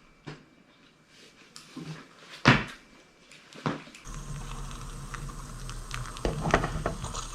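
Hard knocks and clatter as a Kamira stovetop espresso maker is handled and set down, the loudest about two and a half seconds in; about four seconds in a steady low hum and hiss starts, with a few small clicks, as brewing gets under way.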